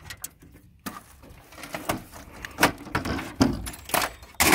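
A steel desktop computer tower being handled and moved after being shot through: scattered metallic knocks and rattles from the case, with a louder clatter near the end.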